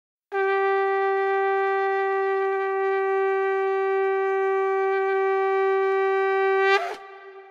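A single long, steady note blown on a horn-like wind instrument, held for about six seconds. It swells briefly just before it breaks off.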